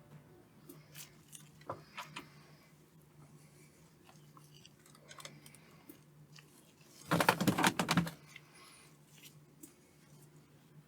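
Small clicks and taps of items being handled on a workbench over a faint steady hum, with a loud rattling clatter lasting about a second around seven seconds in.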